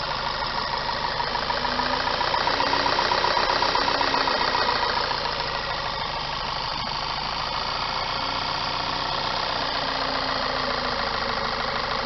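2008 VW Passat 2.0T turbocharged four-cylinder engine idling steadily, heard from the open engine bay. It runs smoothly now that a new fuel pump control module has cured its stalling.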